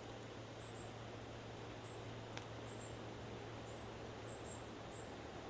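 Faint, very high-pitched short chirps, repeated irregularly, over a low steady hum, with a single click about halfway through.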